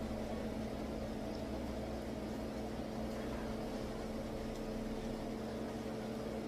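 A steady hum with one constant low tone running through it.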